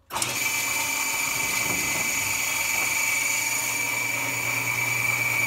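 Table saw switched on and running without load, its blade spinning freely with a steady high whine over a low hum, ready to rip a spruce board.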